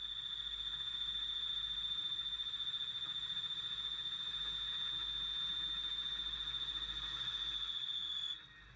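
CNC lathe turning Inconel 625 with a ceramic insert: a steady high-pitched whine over a hiss, cutting off suddenly near the end as the cut stops.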